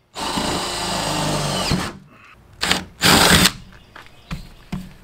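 Power drill with a 3/8-inch bit boring through the steel sheet-metal layers of a Mercedes Sprinter's rear door: one steady run of about two seconds, then two short, harsher bursts about a second later.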